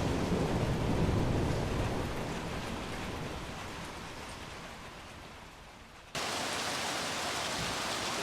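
Heavy storm rain: a deep rumbling rush that fades over the first few seconds, then an abrupt cut about six seconds in to a steadier hiss of rain.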